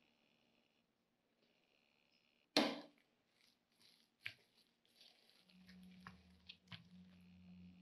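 A sharp knock about two and a half seconds in as sliced scallions are tipped from a small glass bowl into a glass mixing bowl. A spoon then stirs the wet minced chicken and tofu filling, with a few clicks against the glass.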